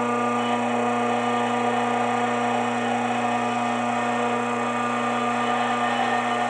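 A steady electrical hum with a low buzz, unchanging throughout.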